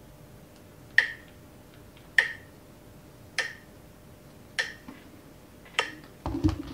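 Phone metronome app ticking at 50 beats per minute: five sharp clicks about 1.2 seconds apart. A low knock and rustle comes near the end.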